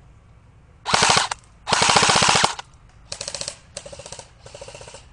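Airsoft electric guns firing full-auto: two loud, close bursts of rapid clicking shots about a second in and just after, then four quieter bursts in quick succession.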